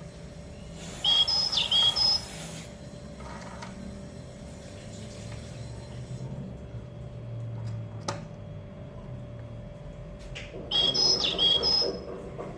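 Recorded bird chirps played twice by a motion-activated feathered cat toy, the same short sequence of high chirps both times. A sharp click about eight seconds in.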